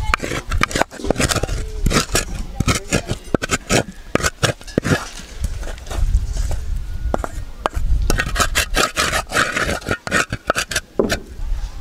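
A spoon scraping fried soya chunks out of a metal frying pan into a pot of rice: a quick, irregular run of scrapes and knocks against the pan.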